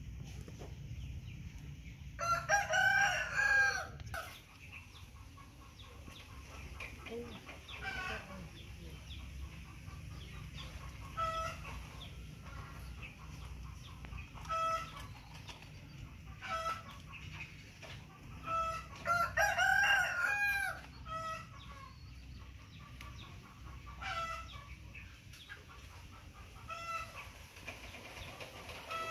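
A rooster crowing twice, each crow about two seconds long and the loudest sound here, with short single calls in between over a steady low background hum.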